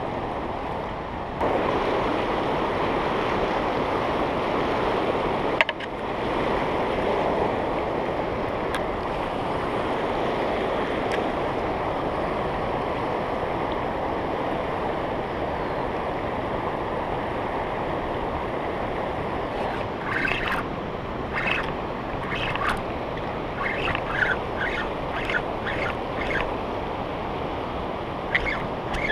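River water rushing over rocky rapids: a steady, fairly loud wash with some wind on the microphone. A few short, sharp high-pitched sounds come through in the last ten seconds.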